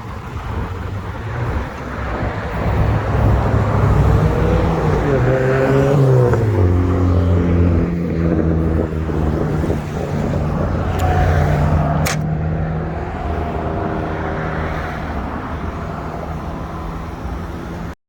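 A motor vehicle's engine running close by in street traffic: its pitch climbs and then drops about five to six seconds in, then holds steady. A single sharp click comes about twelve seconds in.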